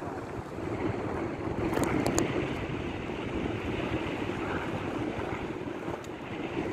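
Wind buffeting the microphone over choppy sea water splashing around the boat, with a few short clicks about two seconds in.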